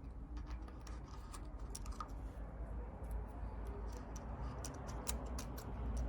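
Irregular light clicks and ticks of plastic packers being handled and slid into the gap between a gate hinge and a glass panel, coming faster in the second half, over a low steady rumble.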